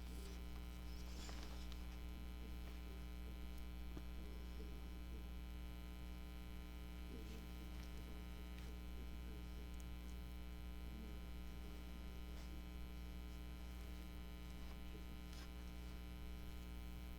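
Steady electrical mains hum, with a few faint soft ticks.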